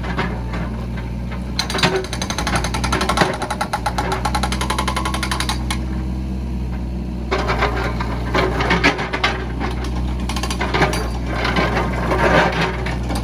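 Case 695ST backhoe loader's diesel engine running at a steady speed, with a low drone under a fast, even clatter.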